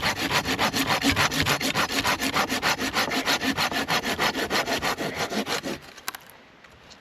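Hand saw cutting through a dry, fallen tree log in quick, even back-and-forth strokes, about six or seven a second. The sawing stops about six seconds in, followed by a couple of light clicks.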